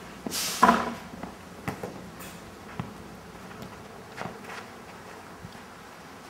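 Sounds of an outdoor football game: about half a second in, a loud burst of hiss that runs into a short pitched sound, then a few faint knocks from the ball being kicked and players running.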